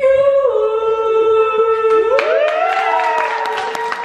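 A woman singing one long held note into a karaoke microphone over the PA, dipping slightly in pitch about half a second in and then holding steady. About halfway through, rising cheers and hand clapping from listeners join in.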